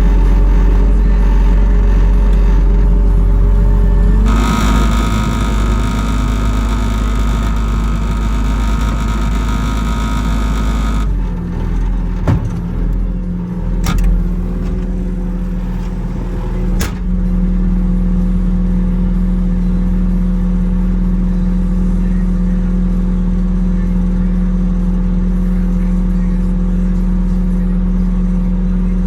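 Engine of heavy equipment running steadily. About four seconds in it turns louder and brighter for about seven seconds, then drops back. Three sharp knocks come a couple of seconds apart midway.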